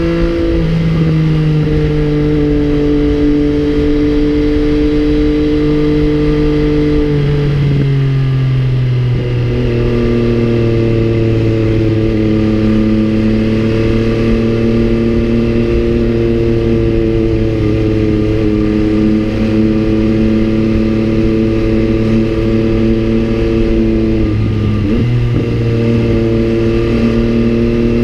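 MV Agusta Brutale 800 three-cylinder engine running at a steady cruising pace under the rider. The engine note drops about seven to nine seconds in, then dips briefly and comes back up near the end.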